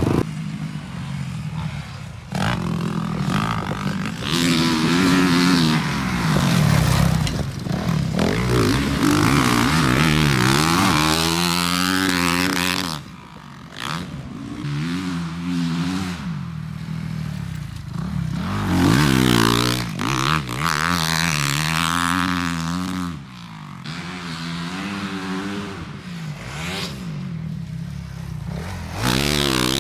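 Motocross dirt bike engines revving hard and letting off as riders go through turns and over jumps, the pitch repeatedly rising and falling, with several abrupt jumps in the sound where clips are cut together.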